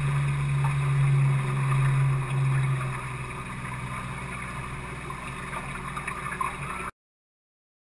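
A 50 hp outboard motor drones steadily under way, with wind and water hiss over it. The engine hum drops in level about three seconds in, and all sound cuts off suddenly near the end.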